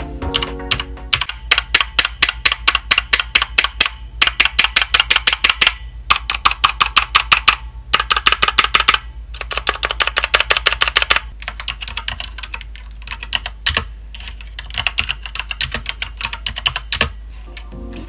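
Fast bursts of typing on a mechanical gaming keyboard, the keys clacking with short pauses between runs. The typing is slower and sparser after about eleven seconds. The switches have a spring ping, typical of budget keyboards around $60.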